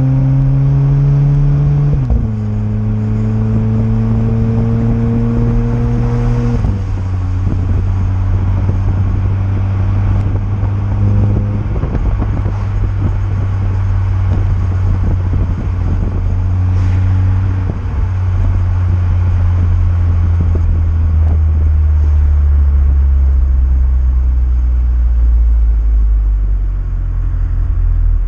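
Volkswagen Golf 7 GTI Clubsport's turbocharged 2.0-litre four-cylinder through a Friedrich Motorsport 76 mm cat-back exhaust while driving. The note climbs under acceleration and drops sharply with gear changes about 2 and 6.5 seconds in, then settles into a low rumble that sinks as the car slows.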